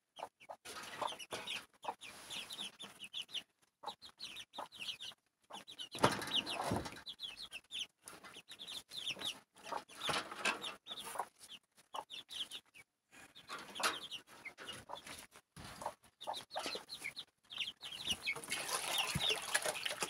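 A hen and her brood of half-grown chicks clucking and cheeping, many short high calls in quick runs.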